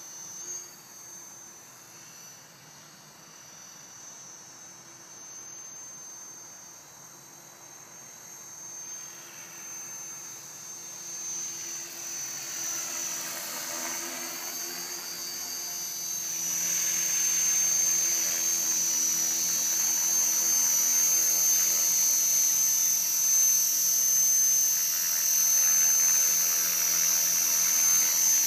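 Align T-Rex 450 Pro electric RC helicopter's motor and rotor whine, faint while it flies at a distance. It grows louder as it comes in close, with a sweeping change in tone about halfway through, and stays steady and loud through the last third as it sits on the grass.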